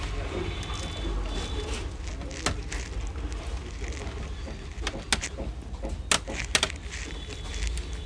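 Sharp clicks and taps of a screwdriver and small screws against the plastic chassis as the motherboard of an HP G4 laptop is unscrewed, a few at first and then a quick cluster about five to six and a half seconds in, over a low steady hum.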